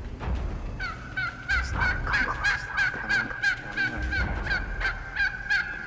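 Wild turkey yelping in a long, quick series of about three to four notes a second, starting about a second in, over a low rumble of wind on the microphone.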